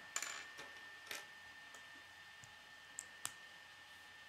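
Plastic K'nex rods and connectors clicking as they are handled and snapped together: a few sharp clicks, the loudest about a quarter second in and two close together near three seconds.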